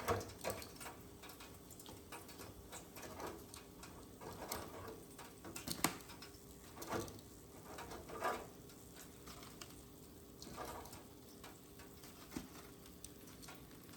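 Faint, scattered taps and knocks of kitchen utensils and food being handled, about six of them spread unevenly, over a low steady hum.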